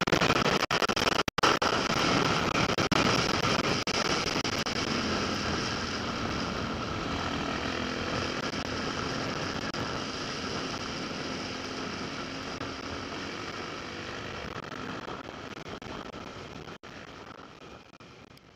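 Off-road motorcycle engine running at speed, with wind rushing over a helmet-mounted camera; the sound slowly gets quieter toward the end.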